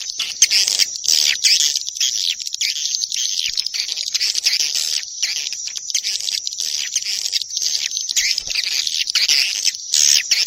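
Swiftlet call lure track: a dense, unbroken mass of high twittering chirps from many swiftlets at once. This is the sound played at swiftlet houses to draw swiftlets in to roost and nest.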